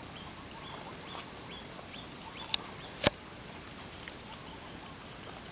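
Quiet background with a series of faint, short, high chirps, and two sharp clicks about two and a half and three seconds in, the second louder.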